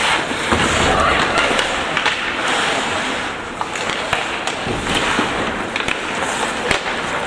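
Ice hockey play: skates scraping and carving the ice, with scattered sharp clacks of sticks and puck.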